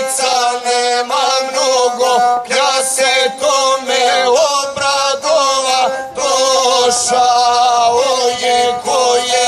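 Gusle, the single-string bowed folk instrument, playing a steady ornamented melody with quick flourishes, an instrumental passage between sung verses of an epic song.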